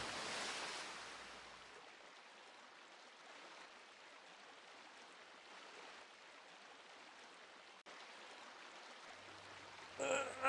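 Faint, steady rain-like hiss of falling water, fading over the first second or two and then lying low. A low hum comes in near the end, and a wavering, groan-like sound starts just at the end.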